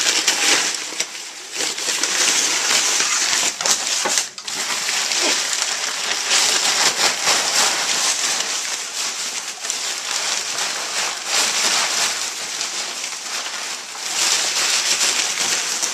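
Crumpled brown packing paper rustling and crinkling continuously as a pig roots and burrows through it, with a brief pause about four seconds in.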